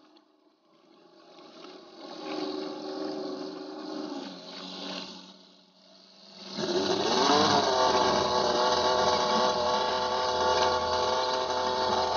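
Classic wooden motorboat's engine running. Past halfway a much louder engine note starts abruptly, rises in pitch briefly as it revs, then runs steadily.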